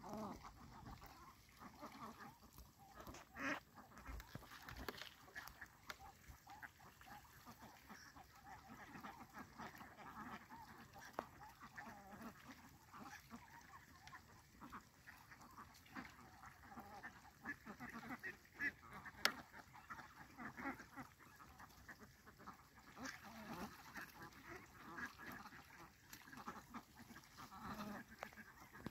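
A large flock of domestic ducks quacking and chattering faintly, many short overlapping calls with no pause. A single sharp click about two-thirds through.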